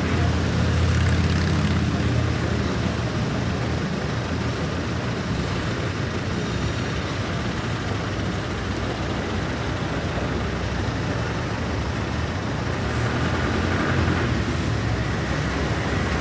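Gas station ambience: steady traffic and vehicle engine rumble, heaviest in the first few seconds and then easing a little. A faint, steady high tone comes in near the end.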